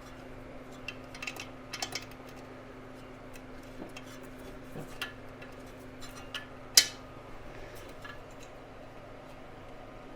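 Metal clicks and clinks of a hand wrench working a bolt, scattered and irregular, with one sharp, louder clink near the seven-second mark. A faint steady hum runs underneath.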